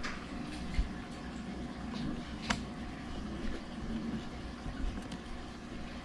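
Faint handling noise with a few small, sharp clicks over a steady low hum, as hands work the memory compartment door on the back of an iMac.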